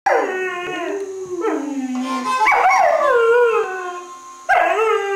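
Border Collie howling: several long howls, each starting high and sliding down in pitch.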